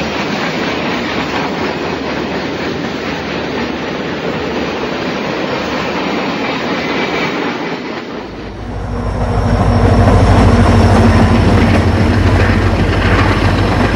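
HO scale model freight train running on layout track, a steady rolling rumble of wheels on the rails. About eight and a half seconds in the sound changes to a louder, lower hum as a Burlington Northern model diesel locomotive passes close by.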